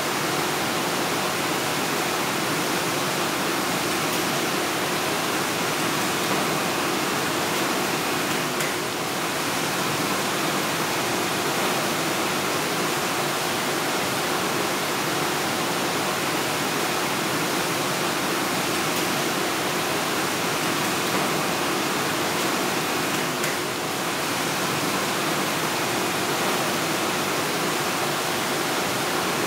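Steady rushing background noise of a factory workroom, even and unbroken, with a faint low hum under it.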